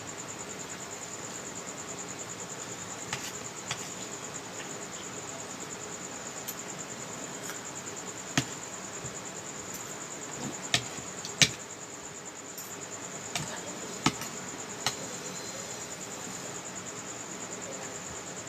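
Insects chirring in a steady, high-pitched, fast-pulsing trill, with a few sharp clicks and knocks over it, the loudest about eleven seconds in.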